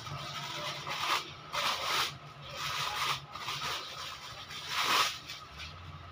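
Clear plastic wrapping crinkling and rustling in several irregular bursts as it is pulled off a new engine piston by hand.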